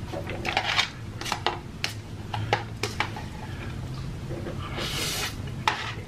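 Wooden chopsticks clicking against an instant-noodle cup and wet noodle-eating noises through the first few seconds. About five seconds in comes one loud slurp of noodles.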